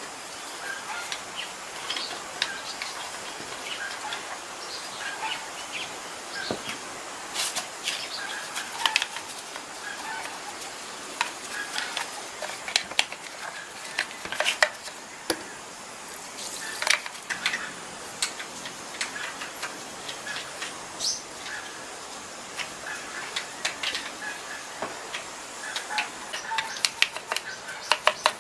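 Chickens clucking, mixed with scattered sharp clicks and taps.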